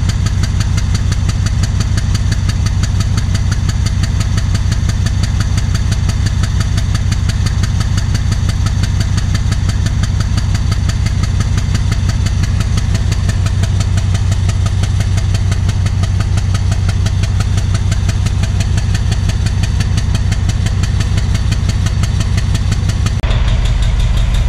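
Alsthom diesel-electric locomotive's engine running stationary with a steady low hum and a rapid, even exhaust beat, while the stack pours out black smoke: the uncommon running sound whose cause the owner is asking about. Near the end the sound changes abruptly to a deeper engine drone.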